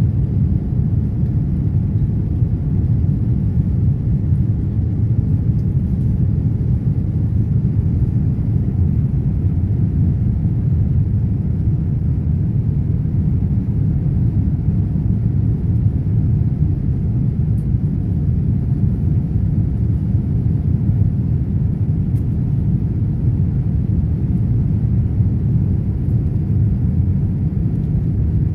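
Steady low rumble of engine and airflow noise inside the cabin of a Boeing 787-9 climbing out after takeoff, with a faint steady hum.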